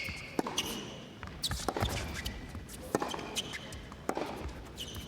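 Tennis rally: sharp hits of racket on ball, roughly a second apart, with short high squeaks of shoes on the hard court between them.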